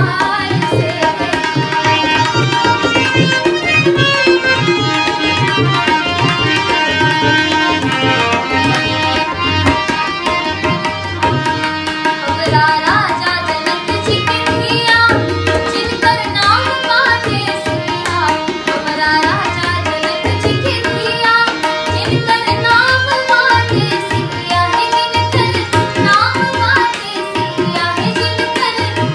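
Harmonium and tabla playing together, the tabla keeping a steady rhythm of low and sharp strokes under the harmonium's sustained reed tones. A woman's singing voice comes in over them about twelve seconds in.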